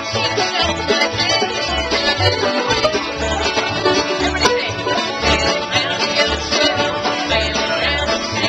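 Acoustic bluegrass band playing live: acoustic guitar, mandolin and banjo picking together with a fiddle, over a steady pulse of low bass notes about twice a second.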